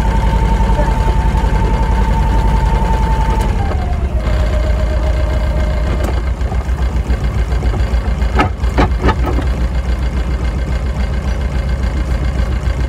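A sailboat's small inboard auxiliary engine idling with a steady low throb while the boat is steered in to dock. A thin whine drops in pitch about four seconds in and stops around six seconds, and three sharp clicks come just past eight seconds.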